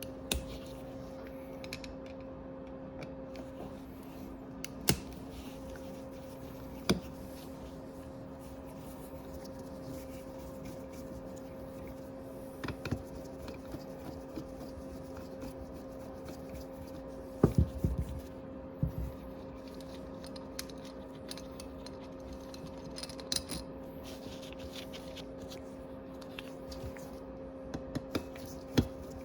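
Scattered metal clicks and knocks of hand tools and small parts as the bottom float bowl is unbolted from a Honda Navi scooter's carburetor, with a cluster of knocks about two-thirds of the way through. A steady low hum runs underneath.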